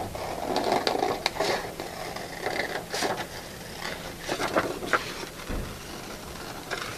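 Scissors cutting through a sheet of paper: a run of irregular snips, with the paper rustling as it is turned.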